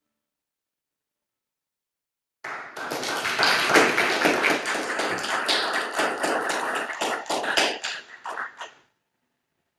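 Congregation applauding. The applause starts suddenly and thins to a few last claps before it stops.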